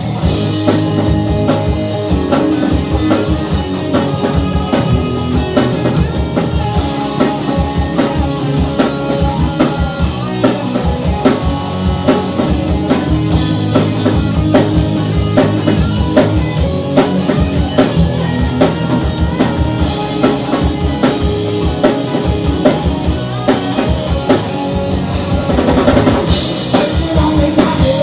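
A live rock band playing, with a drum kit keeping a steady beat under guitar.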